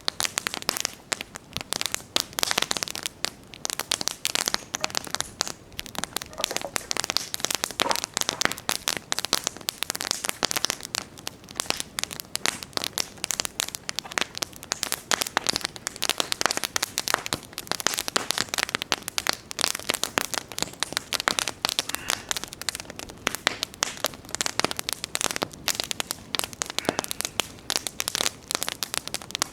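Wood campfire burning, with constant dense crackling and frequent sharp pops over a soft hiss.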